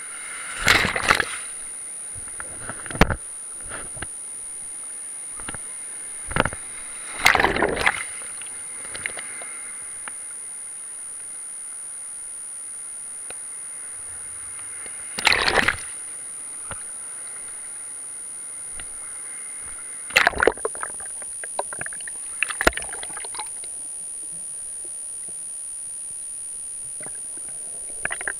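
Surf water splashing and sloshing against an action camera held in the waves and dipped underwater: a steady muffled hiss with a constant high whine, broken by sudden splashes every few seconds.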